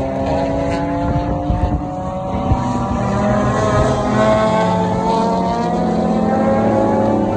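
A pack of race cars running through a corner, several engines heard together, their notes climbing steadily in pitch as the cars accelerate.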